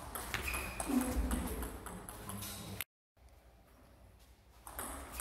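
Table tennis rally: a celluloid-type ball being struck by the bats and bouncing on the table, heard as a run of sharp clicks. About three seconds in, the sound cuts out briefly and then comes back quieter.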